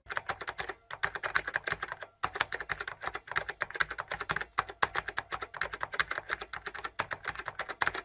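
Fast typing on a laptop keyboard: a quick, continuous run of key clicks with brief pauses about one and two seconds in.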